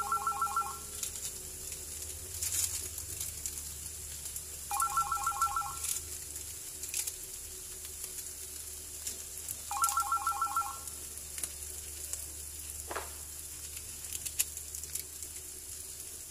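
A telephone ringing three times, about five seconds apart, each ring a quick warbling trill, over a faint steady sizzle from the frying pan.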